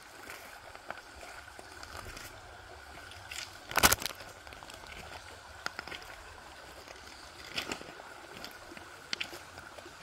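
A shallow creek trickling over stones, with scattered crunches and knocks of footsteps on creek-bed cobbles; the loudest crunch comes about four seconds in.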